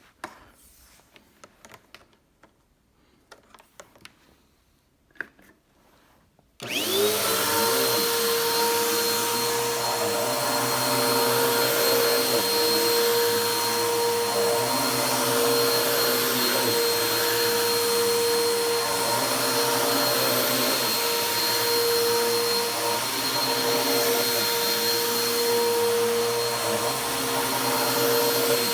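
Upright vacuum cleaner switched on about six seconds in after a few quiet clicks, its motor spinning up quickly and then running steadily with a high whine over the rush of air.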